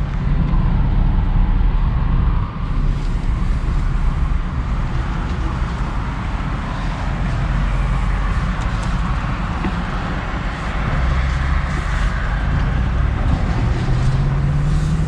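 Ram pickup truck driving, with steady engine and road noise; a low engine hum comes up near the end.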